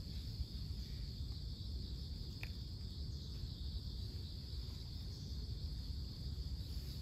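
Crickets singing steadily, high-pitched, over a constant low rumble, with one short high tick about two and a half seconds in.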